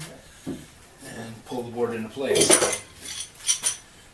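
A metal bar clamp being handled and fitted against a wooden workbench edge: a short squeaky scrape, then metal clatter about halfway through and a few sharp clinks.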